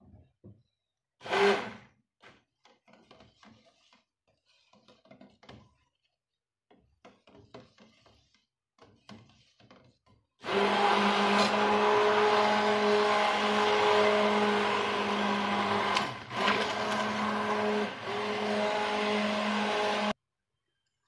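Handheld stick blender running steadily in a steel pot of thick liquid-castile soap paste for about ten seconds from about halfway in, dipping briefly twice. The paste had separated into liquid on heating and is being blended back together. Before that come a single knock about a second in and faint handling sounds of the blender and pot.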